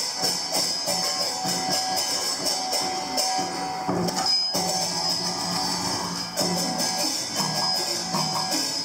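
Traditional Vietnamese water-puppet theatre music: fast, steady percussion with plucked strings and sustained tones, with a brief gap about four and a half seconds in.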